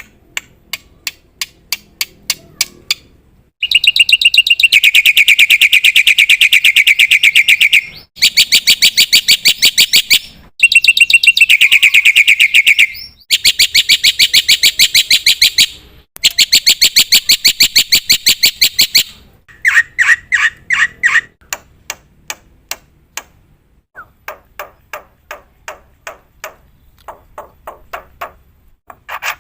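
Black-winged myna (jalak putih) singing: a series of sharp repeated notes, then several loud, very fast trills of a few seconds each, then spaced repeated notes again near the end.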